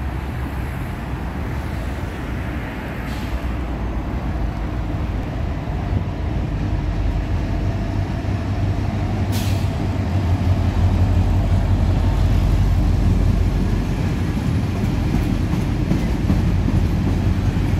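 Freight train passing: a locomotive hauling container flat wagons, a steady low rumble that grows louder as the locomotive comes close about halfway through, then the wagons rolling past.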